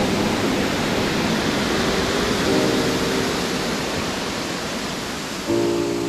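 Steady rushing roar of a waterfall cascading over rocks, with soft held music chords over it, a new chord about every three seconds. The water sound fades out over the last couple of seconds while the last chord comes in.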